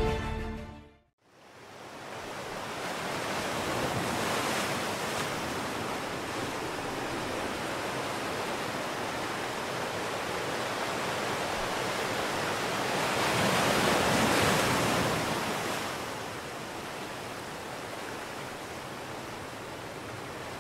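Steady rushing wash of lake waves. It fades in about a second in and swells for a couple of seconds about two thirds of the way through.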